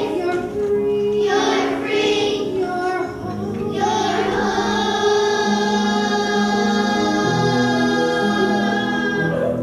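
A song sung by a woman and children with piano accompaniment. About four seconds in the voices hold one long note until near the end.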